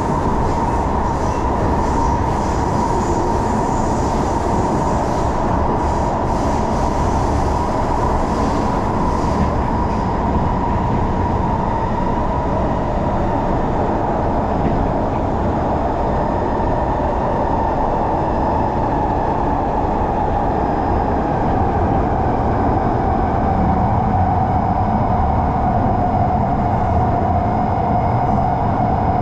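Singapore MRT train running underground, heard from inside the carriage: a steady rumble of wheels on track with a high whine that slowly drops in pitch.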